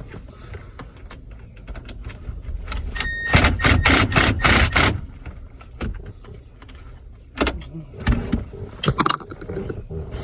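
Small metal hand tools and Torx bits clinking and rattling as they are handled, with a dense burst of rattling from about three to five seconds in and scattered clicks and knocks before and after. A brief high tone sounds just before the loud rattling.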